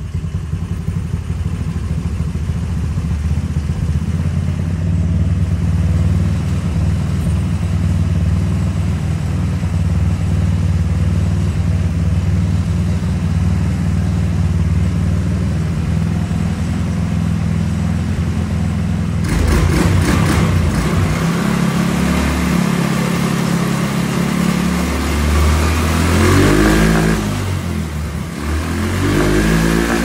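GY6 150cc single-cylinder four-stroke engine of a go-kart buggy, running now that a new stator and AC wiring harness have cured its no-spark fault. It idles steadily, then from about two-thirds of the way through it is revved up and down several times.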